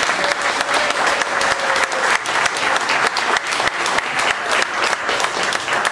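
Audience applauding steadily, a big ovation with many hands clapping at once.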